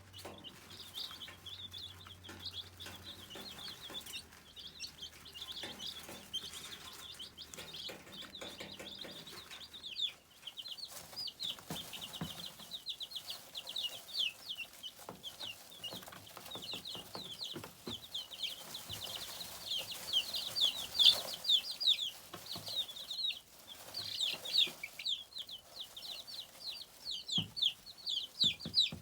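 Chickens clucking and calling, a steady stream of short, high chirps that gets busier and louder in the second half.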